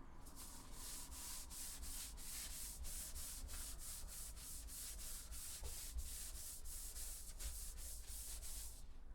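Cloth rubbing Danish oil into a sanded wooden handrail in quick back-and-forth strokes, about two or three a second, stopping near the end.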